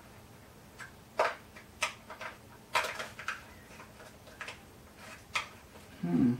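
Irregular sharp clicks and taps of landing gear parts being handled and fitted into a foam RC jet's fuselage, about eight to ten in all. A brief low hum comes near the end.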